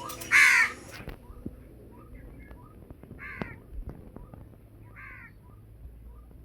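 Crow cawing three times: one loud caw about half a second in, then two fainter caws a few seconds apart. Faint short chirps sound between the caws.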